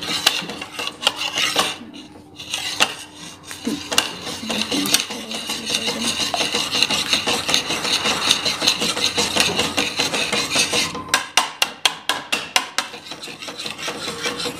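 Metal slotted spoon scraping and stirring melting sugar syrup around a kadhai, crushing the sugar lumps as the syrup forms. Near the end comes a quick run of rapid, even strokes.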